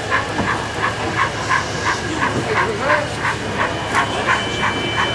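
Model LMS steam tank locomotive chuffing steadily at about three beats a second as it hauls a goods train slowly along the layout.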